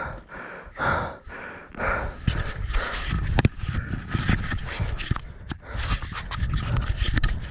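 A person breathing hard, about one breath a second, then rubbing and clicking from the camera being handled or covered.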